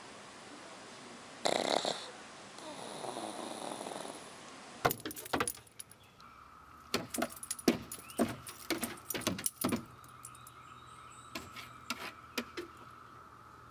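A sleeping black pug snoring softly, with one louder snoring breath about a second and a half in. About five seconds in this gives way to a dog's claws scratching and clicking on a wooden deck in quick bursts as it paws at the boards.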